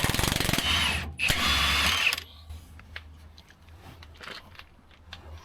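Power wrench spinning a truck frame bolt in two bursts of about a second each, a dense rapid rattle, then it stops.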